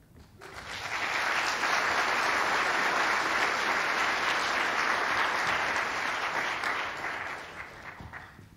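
Audience applauding, swelling up within the first second, holding steady and dying away over the last two seconds.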